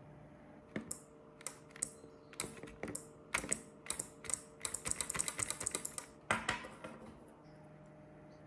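Irregular small clicks and taps, quickening into a fast run of clicks in the middle, over a faint steady hum.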